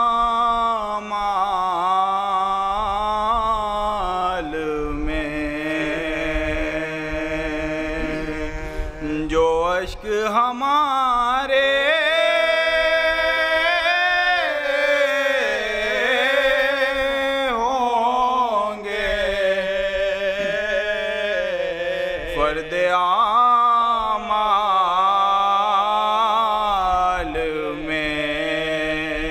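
A man chanting an Urdu Muharram lament (salam) unaccompanied, in long, wavering melodic lines broken by a few short pauses for breath.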